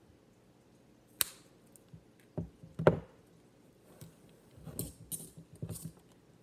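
Fabric scissors snipping paracord, a few separate sharp snips and clicks with handling in between.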